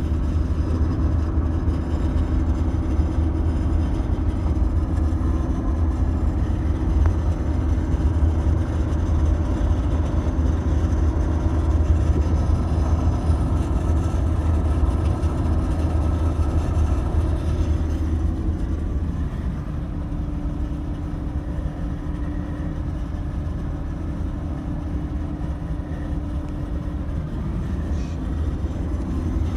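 A 2017 Ford F-150 driving at high speed: a steady low rumble of road and drivetrain noise, with the high-speed rattle the owner is trying to capture. The noise eases slightly about two-thirds of the way through.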